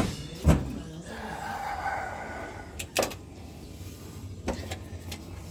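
Three separate sharp knocks of metal being handled during car body work on the floor pans, a second or more apart, over a low background.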